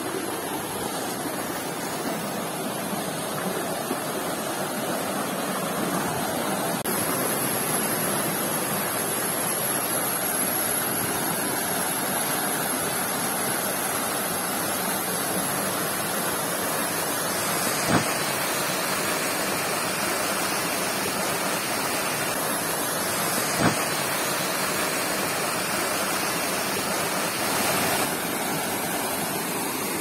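Waterfall's rushing water: a steady, even noise, with two brief knocks partway through.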